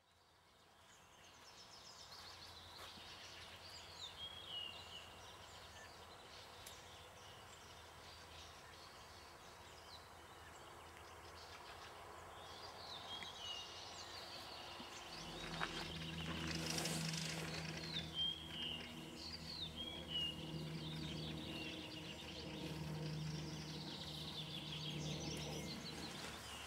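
Birds chirping and singing faintly over outdoor ambience that fades in from silence. About halfway through, a low steady hum joins underneath.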